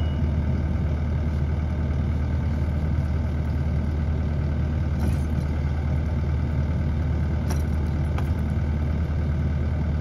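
Compact track loader's diesel engine idling steadily, with a few faint clicks.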